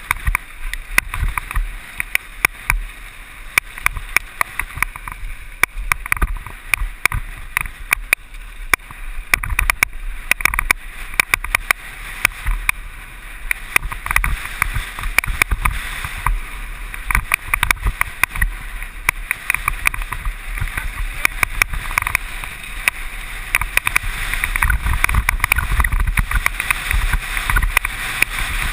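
Mountain bike clattering down a rough descent: rapid sharp clicks and rattles from the bike and tyres over rocks, with wind rumbling on the microphone that grows louder near the end.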